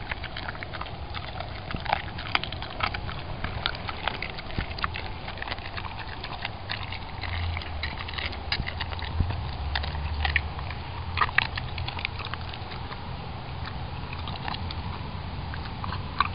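A dog chewing a raw whole quail, its small bones crunching and cracking in irregular sharp clicks.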